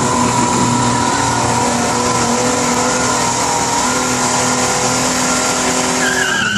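A pulling truck's engine running flat out under load during a truck pull, holding a steady, high-revving note for several seconds with a heavy hiss of noise around it.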